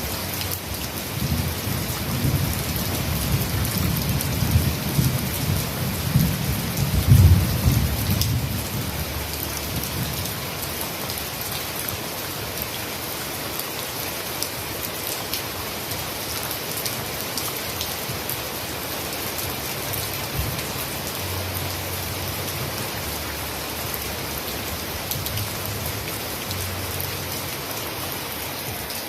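Heavy rain falling steadily, a dense hiss of drops, with a low rumble through the first third that swells about seven seconds in and then fades.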